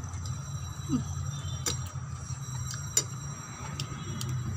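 Eating noises: two sharp clicks about a second apart, over a steady low hum.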